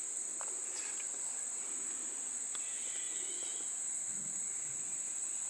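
Insects trilling in a steady, unbroken high-pitched chorus, with a few faint small ticks.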